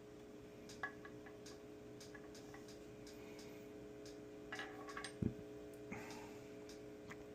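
Faint, scattered clicks and light taps of small tools and parts being handled during guitar wiring work, over a steady low electrical hum, with a short cluster of clicks and a soft knock about five seconds in.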